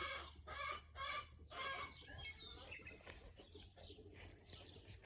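Chickens clucking, with a run of short clucks in the first two seconds and fainter calls after that.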